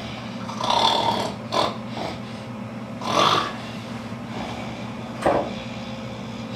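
Snoring from a sleeping person: a few loud, rasping snores a couple of seconds apart, the last one short and sharp, over a steady low electrical hum.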